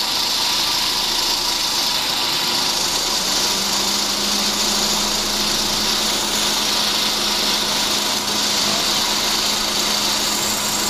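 A machine running steadily: an even, loud hiss with a low steady hum that sets in about three seconds in.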